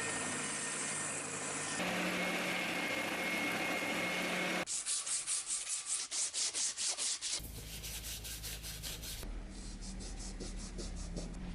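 Sanding the ash wood axe handle: first a steady scratchy rasp, then quick, even back-and-forth hand strokes at about five a second that grow fainter over the later cuts.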